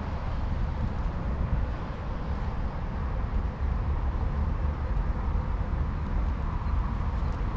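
Steady outdoor background rumble with a fainter hiss, heaviest in the low end and unbroken throughout.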